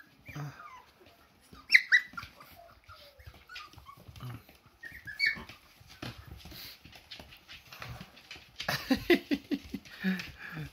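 Husky puppies whimpering and squeaking, with a sharp high yelp about two seconds in and a long whine that falls in pitch. Near the end comes a quick run of scuffling clicks.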